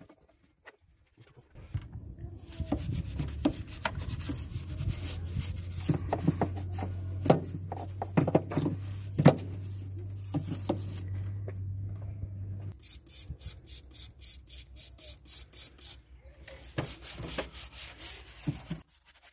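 Small detailing brush scrubbing degreaser over the plastic engine cover and parts in an engine bay, with scattered clicks as it knocks against the parts. About two-thirds of the way through, the strokes turn fast and regular, about four a second. A low steady hum runs underneath until then.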